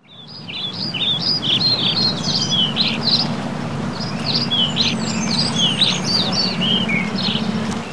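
Many small birds chirping at once, quick short overlapping chirps, over a steady low hum; the sound fades in at the start.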